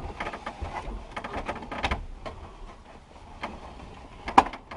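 Scattered clicks, rattles and knocks of hand work on a Ford F-150's partly dismantled dashboard, with one sharp knock near the end.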